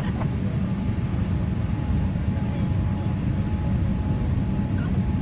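Steady low rumble of a Boeing 787-8 Dreamliner cabin in flight on descent, with airflow and engine noise and a faint steady whine above it.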